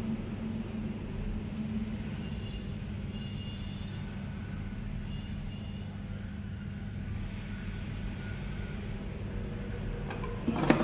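Steady low background hum with a few faint short high beeps, during quiet hand soldering on a circuit board; near the end a sharp clack as the multimeter is picked up and handled.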